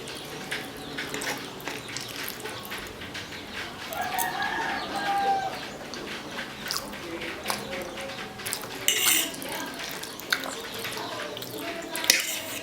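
Close-up eating sounds: small clicks and taps of cutlery on a plate, with chewing. About four seconds in, a drawn-out pitched call sounds in the background, rising and then falling, for about a second and a half.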